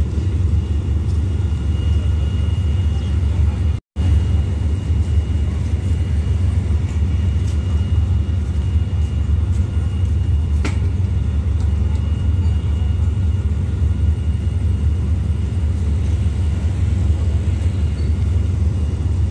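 Steady low rumble of a diesel-hauled passenger train standing at the platform, its locomotive idling, with a faint steady high whine above it. The sound cuts out for a moment about four seconds in.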